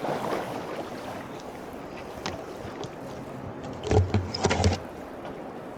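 Kayak paddle strokes in the water, with a cluster of louder splashing strokes about four seconds in.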